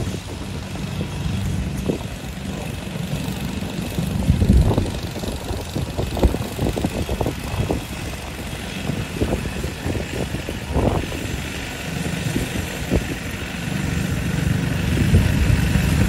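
Small tractor's engine running at low speed as it drives slowly, with a run of sharp knocks and pops in the middle and the engine getting louder near the end.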